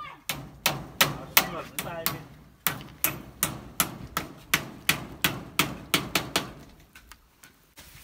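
A hammer driving a nail into a wooden post: a fast run of sharp blows, about three a second, that stops shortly before the end.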